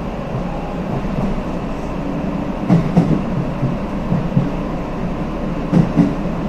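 A 323-series electric commuter train running, heard from inside its rear cab: a steady rumble, with two quick pairs of clacks as the wheels cross rail joints, about halfway through and near the end.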